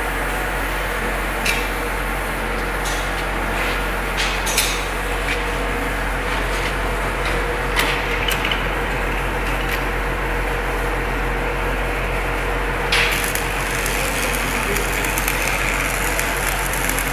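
Shielded metal arc (stick) welding: the electrode's arc crackling and sizzling over a steady low hum, with a few sharp clicks. The sizzle grows brighter and hissier about thirteen seconds in.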